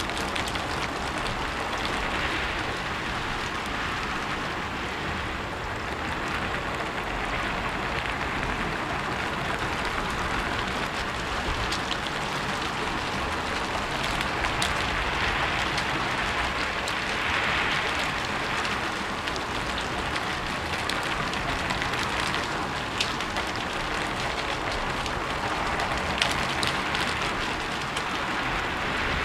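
Steady rain falling on a rooftop, an even patter with scattered sharper drips.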